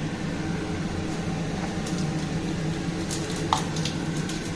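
Cumin seeds spluttering in hot oil in a pan: sharp crackling pops, coming thick and fast from about three seconds in, over a steady low hum. A short metallic clink about three and a half seconds in.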